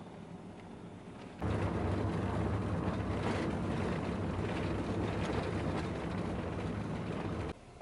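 Steady rumbling noise of a vehicle in motion. It cuts in abruptly about a second and a half in and stops just as suddenly near the end.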